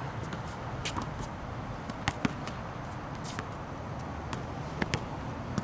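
A basketball bouncing on an outdoor hard court: a few sharp separate thuds, the two loudest about two seconds in and another pair near the end, over steady outdoor background noise.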